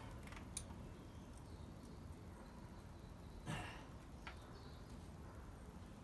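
Quiet room tone with a light click about half a second in and a short, soft rustle about three and a half seconds in.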